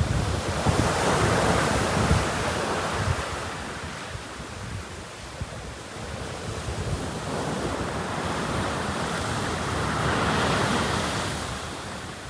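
Sea surf washing onto a beach, swelling twice: about a second in and again near the end. Wind rumbles on the microphone underneath.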